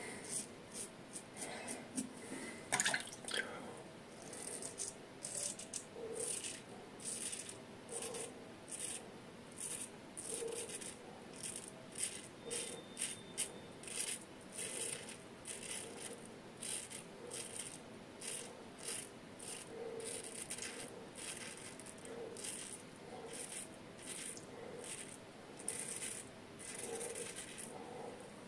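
Yaqi Excalibur razor with a Feather Pro Guard blade scraping through lathered stubble on the upper lip and chin: short, quick strokes repeated over and over, one louder stroke about three seconds in.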